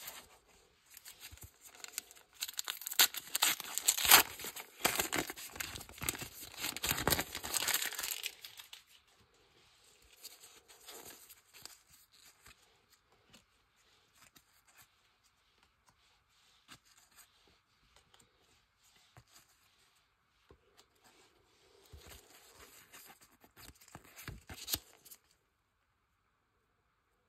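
Foil trading-card booster pack being torn open and crinkled: several seconds of dense crackling tearing, light rustling handling after it, and another burst of crinkling near the end.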